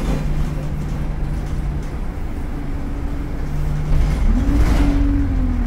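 Inside an Alexander Dennis Enviro200 single-deck bus under way: steady engine and road rumble, with a whine that rises in pitch about four seconds in as the bus pulls harder, then slowly falls.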